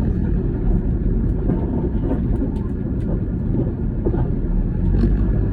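Toyota HiAce KDH200 van driving, with a steady low rumble of engine and road noise.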